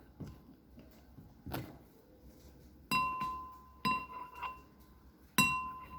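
Eating utensil clinking against a soup dish: a few soft taps, then four sharp ringing clinks in the second half.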